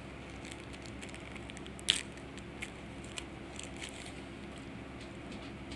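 Crinkling and crackling of a foil trading-card booster pack wrapper as it is handled and torn open, with cards being shuffled. Irregular sharp crackles, the loudest a snap about two seconds in, over a steady low hum.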